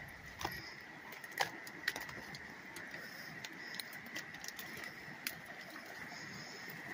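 Twigs and branches cracking and snapping underfoot and against the body while pushing on foot through a dense willow thicket: a scatter of sharp cracks, the loudest about a second and a half in. A faint steady high whine runs underneath.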